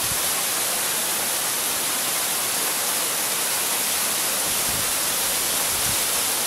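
Small mountain waterfall rushing steadily as it cascades down a rock face, an even, unbroken hiss of falling water.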